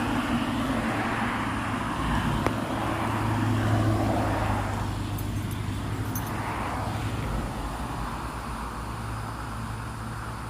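Road traffic: cars going by, engine hum and tyre noise swelling and fading several times.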